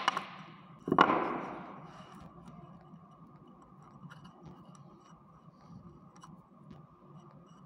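A sharp snip of side cutters cutting through a thin fan wire at the start, then a louder knock about a second in that dies away over about a second. After that only faint small clicks of the wire being handled.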